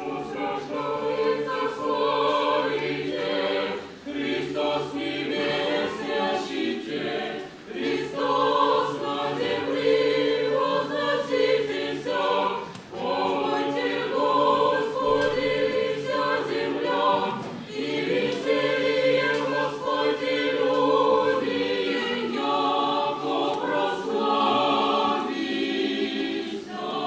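A choir singing in sustained phrases of several seconds each, with short breaks between them.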